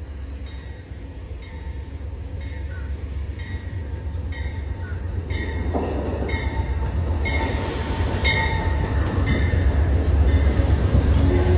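Amtrak passenger train approaching, its low rumble growing steadily louder, with a short high-pitched ring repeating about once a second.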